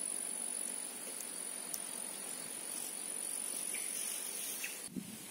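Insects buzzing in one steady, high thin pitch over a quiet outdoor hiss, with a few faint short chirps.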